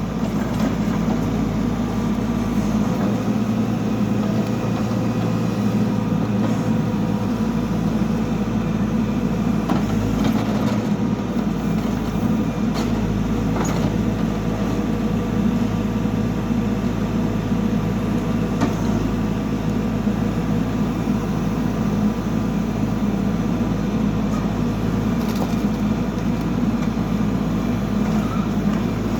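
Backhoe loader's diesel engine running steadily, with a few faint knocks now and then.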